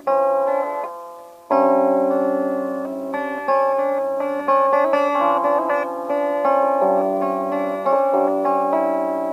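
Guitar tuned down about a whole step, playing single notes of the G Lydian mode that are left to ring over one another. After a note fades, a firm pick attack comes about a second and a half in and starts a run of notes.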